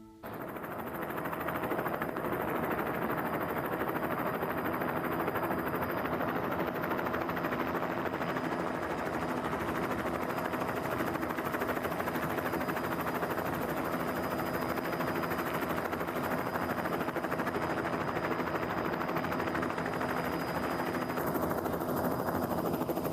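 A steady mechanical drone with a few constant tones that hold the same pitch throughout, with no passes or revving.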